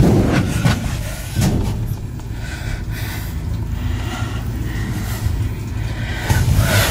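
Portable generator's small engine started with its electric key start, then running with a steady low drone.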